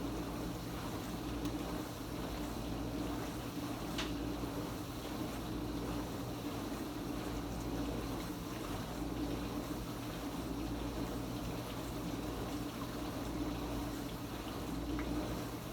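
Kenmore Ultra Wash 3 dishwasher running its Quick Rinse cycle: a steady pump-motor hum with water swishing and spraying inside the tub. A faint tick about four seconds in.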